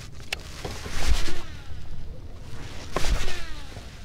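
Two casts with a baitcasting rod and reel, about a second in and again about three seconds in: each a swish with a dull thump, then the whir of the spinning spool falling in pitch as it slows.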